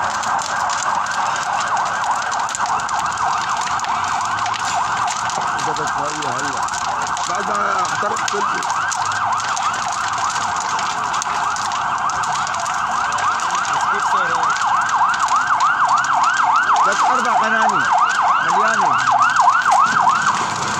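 Emergency vehicle siren wailing in quick rising-and-falling sweeps, a few a second, growing louder toward the end.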